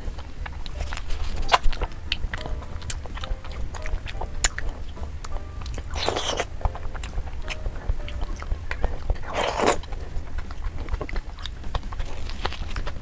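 Close-miked eating sounds: chewing and wet mouth clicks and smacks while eating soft fufu and chicken curry by hand. Two longer, louder mouth sounds come about six and nine and a half seconds in.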